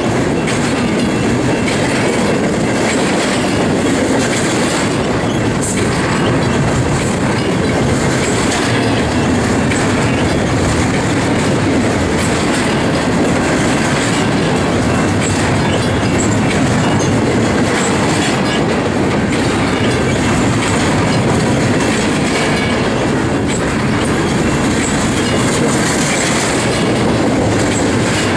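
Double-stack intermodal well cars rolling past close by: a steady, loud rumble of steel wheels on rail, with occasional sharp clicks.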